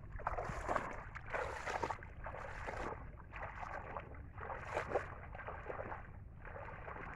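Footsteps wading through shallow muddy water, each step a splash and slosh in a steady walking rhythm.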